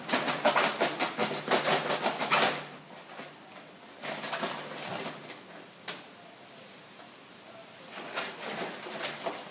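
Markers rattling inside a paper gift bag as it is shaken hard for about two and a half seconds, then quieter rustling and a few clicks as a hand rummages in the bag.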